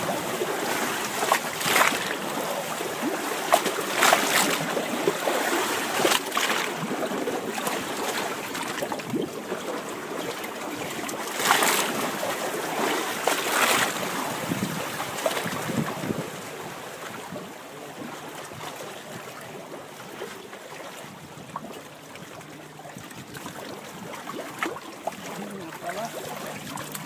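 Wind on the microphone over water lapping around a fishing boat, with a few short, louder rushes of wind in the first half that die down to a quieter steady hiss for the rest.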